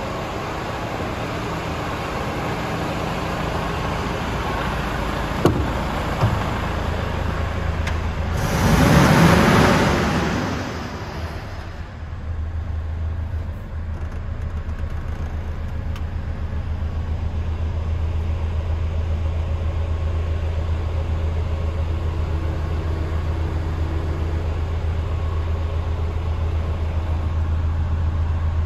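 Mercedes Actros 1843 tractor unit's straight-six diesel idling with a steady low hum. There are two sharp clicks about five and six seconds in and a loud rushing noise for a couple of seconds around nine seconds. From about twelve seconds on, the idle is heard more muffled from inside the cab.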